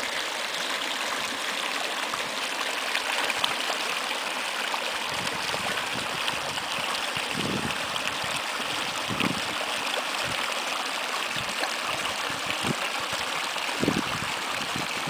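Shallow mountain creek running over rocks: a steady rushing, babbling hiss of water. A few brief low thumps break in during the second half.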